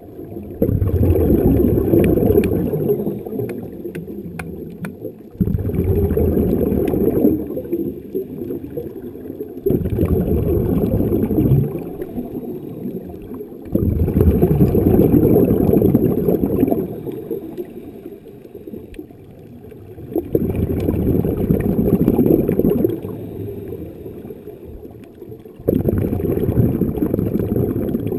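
Underwater breathing through a diving regulator: exhaled air bubbling out in six rumbling bursts of two to three seconds, one every four to six seconds, with a thin hiss on each breath.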